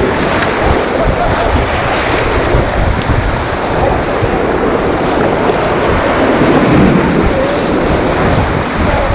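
Rushing whitewater, a loud and steady rush of river rapids, with wind buffeting the microphone.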